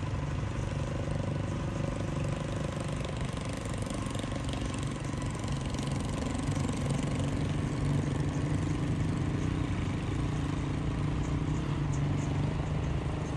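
An engine idling with a steady, even hum.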